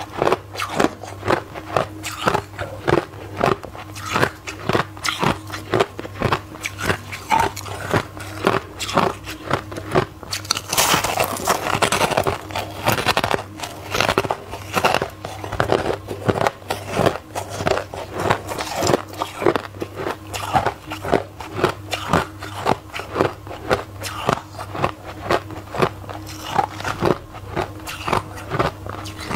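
Soft white ice being bitten and crunched close to the mouth: a long run of quick crunches, a few a second, thickest about halfway through. A steady low hum lies underneath.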